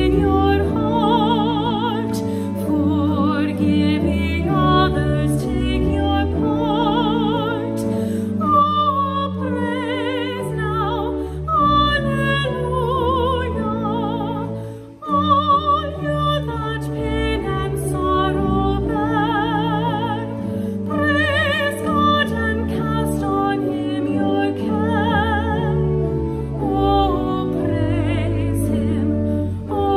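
Slow classical-style music: a high melody with wide vibrato over sustained lower notes, with a brief break about halfway through.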